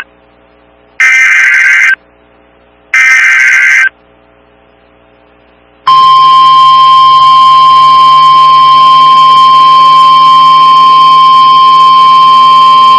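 Emergency Alert System signal on NOAA Weather Radio. Two one-second bursts of SAME digital header data, a harsh two-tone buzz, about a second apart, are the last two of three. About six seconds in, the steady 1050 Hz warning alarm tone starts and holds, announcing a severe thunderstorm warning.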